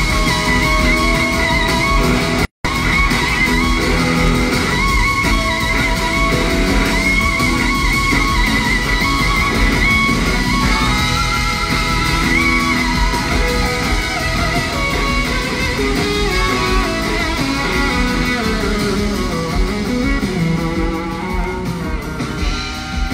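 Live rock band under an electric slide guitar solo played on a Gibson SG, its lead line singing and gliding between notes over drums, bass and rhythm guitar, heard through a phone recording in a large arena. The audio cuts out for an instant about two and a half seconds in, and the band thins out near the end.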